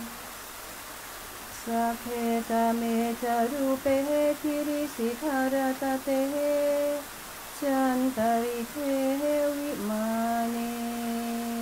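A single voice singing a slow devotional chant. After a short pause it sings a run of melodic, sliding syllables from about two seconds in, then settles onto one long held note near the end.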